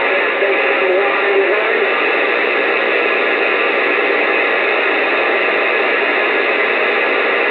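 Uniden Bearcat CB radio receiving on AM, its speaker putting out steady static hiss between transmissions. A faint wavering whistle sits under the hiss for the first couple of seconds.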